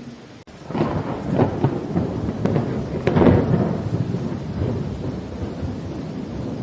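Thunder rolling over steady rain: a peal breaks in about a second in with sharp crackles, swells again to its loudest about three seconds in, then slowly rumbles away.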